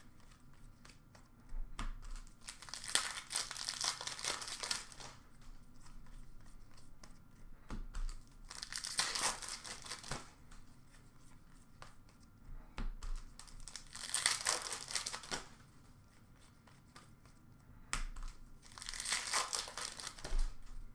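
Upper Deck hockey card pack wrappers being torn open and crinkled by hand, in four bursts a few seconds apart.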